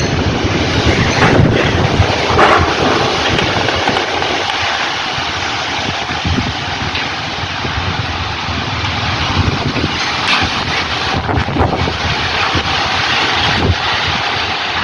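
Very strong storm wind blowing in gusts, buffeting the microphone, over a steady hiss of rain.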